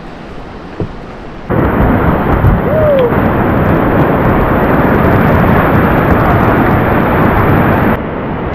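Loud, steady rush of river whitewater. It starts abruptly about a second and a half in and cuts off just as suddenly near the end.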